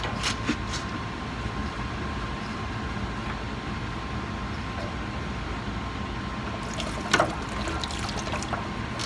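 Water gushing steadily out of the open drain port of a full water heater tank as the plastic boiler drain is pulled off, with a few clicks near the start and a sharper knock about seven seconds in.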